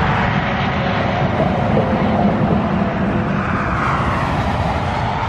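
Highway traffic going past: a steady rush of tyres and engines, swelling as a vehicle passes about three and a half to five seconds in.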